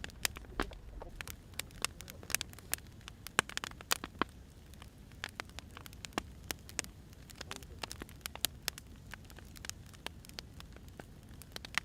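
Firewood burning, crackling with irregular sharp pops and snaps over a low steady rumble.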